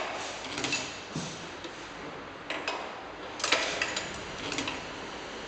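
Semi-automatic round-bottle labelling machine with a date coder being worked by its hand lever: a few sharp mechanical clicks and knocks at irregular spacing, the loudest about three and a half seconds in, over a steady hiss.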